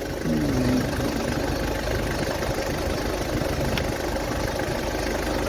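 Mercedes Sprinter van engine idling steadily while it warms up after a thermostat change and coolant top-up, with no heat reaching the heater yet.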